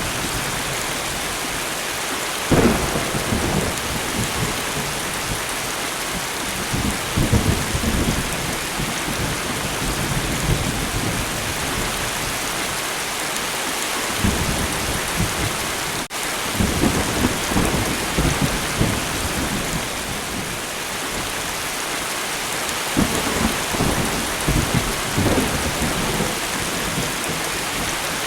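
Steady light rain hissing, with low rumbles of thunder rolling in several times. There is a momentary dropout about a third of the way through.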